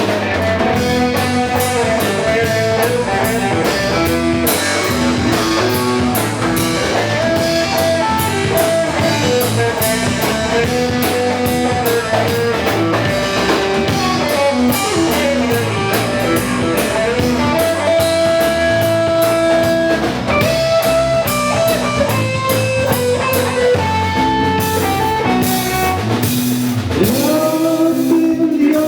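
Instrumental break of a rock song: guitar playing a melodic lead with held, bending notes over bass and a steady drum beat.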